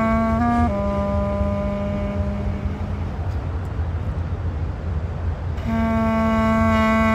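Low clarinet playing long sustained notes: a held tone, a brief step up, then a lower note that fades out a couple of seconds in; after a pause the first note comes back about two seconds before the end. A steady low rumble runs underneath throughout.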